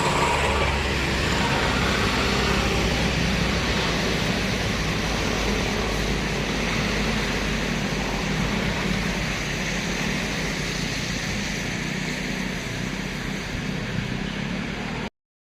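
Passing road traffic: a heavy vehicle's low engine rumble with tyre noise, steady and slowly easing off. The sound drops out completely for a moment near the end.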